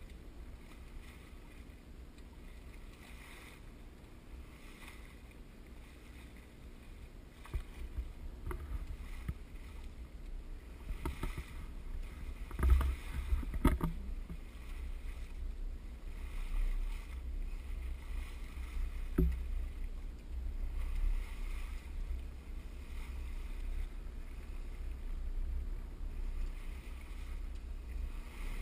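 A sailboat moving through the water in light air: low wind buffeting on the microphone over a soft swish of water that swells and fades every second or two. Two sharp knocks come about a second apart near the middle, and another a few seconds later.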